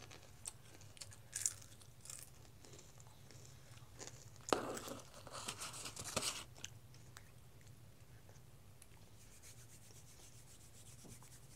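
Soft crunching of a potato chip being chewed, then a hand rubbing and bumping against the camera's microphone around the middle, with a sharp click, over a steady low hum.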